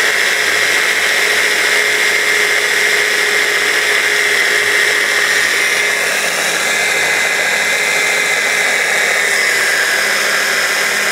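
Stick blender with its chopper attachment running loud and steady, its motor whining without a break as the blades chop walnuts, parsley and garlic into pesto.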